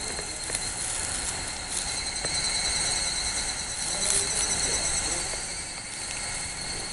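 Steady, high-pitched chorus of insects, with soft rustling from a hand stroking the cat's fur over the grass and a low rumble underneath.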